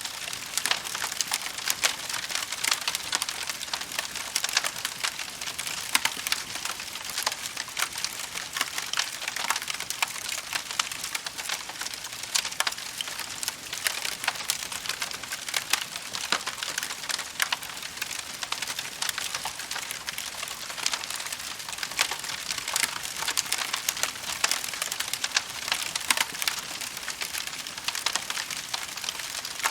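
Wood fire crackling: a steady run of many small sharp pops and snaps over a soft hiss.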